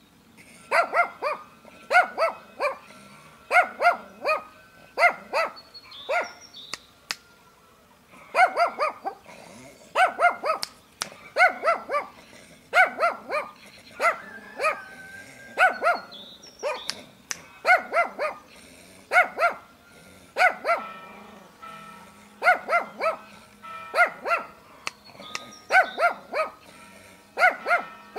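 A small red long-haired dog barking aggressively in quick bursts of two to four sharp barks, repeated about every second and a half, with a short pause about seven seconds in.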